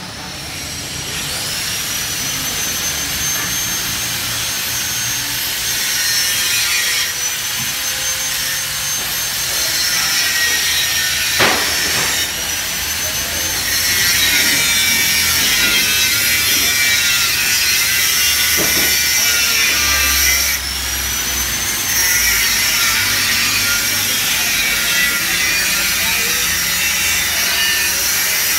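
An electric grinder working metal: a high whine that winds up over the first couple of seconds, over a continuous hissing rasp. About two-thirds through it briefly drops and winds up again, and a couple of short knocks sound near the middle.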